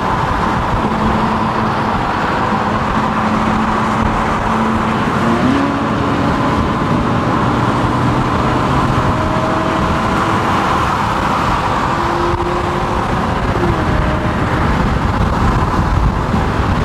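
A car driving at motorway speed, heard from inside the cabin: steady road and wind noise with an engine hum that shifts in pitch a couple of times.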